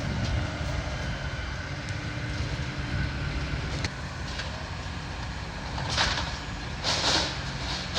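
Heavy diesel demolition excavator running steadily as it works on a building, with two brief louder bursts of noise about six and seven seconds in.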